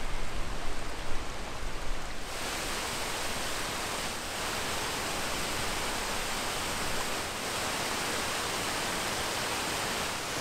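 Shallow river water rushing over stones: a steady, even rush of running water.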